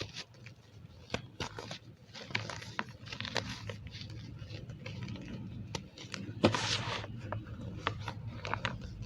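Gym chalk mixed with cornstarch being squeezed and crushed, giving an irregular run of small squeaks and crunches, with a louder crunch about six and a half seconds in.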